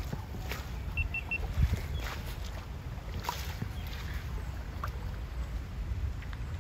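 Oar blades of a small inflatable boat dipping and splashing in calm water as it is rowed, a few irregular strokes, over a steady low rumble. Three short high chirps sound about a second in.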